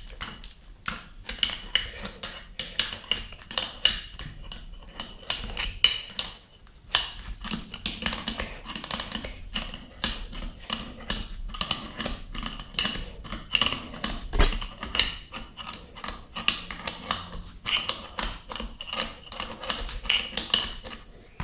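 Rapid metallic clicking, about three to four clicks a second with a slight ring, as the screw of a gear puller is turned to draw a stuck part off a water pump's shaft.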